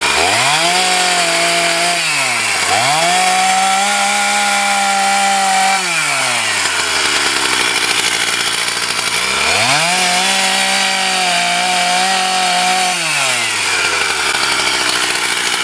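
Chainsaw revved up three times, each run rising to a high steady whine, holding for a few seconds, then dropping back to a low idle.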